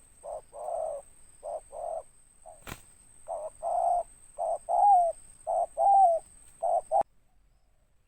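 Spotted dove (tekukur) cooing: a short phrase of four coos, then after a pause a longer, louder phrase of coos, ending abruptly about seven seconds in. A single click sounds between the phrases and a faint high whine lies under the calls.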